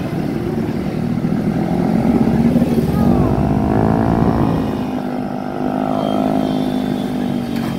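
Motorcycle engine running steadily, its pitch and loudness rising briefly about two to three seconds in and then easing back.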